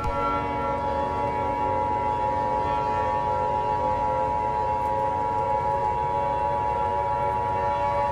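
Steady electronic emergency-alert tone held for about eight seconds and cutting off sharply, over a droning bed of sustained lower tones.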